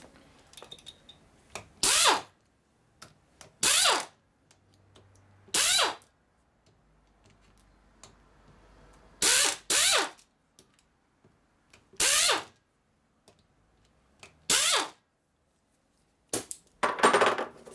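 Air ratchet running in about eight short bursts of roughly half a second each, its pitch dropping as it winds down after each one, as it spins the lid bolts out of a Harley-Davidson Dyna six-speed transmission.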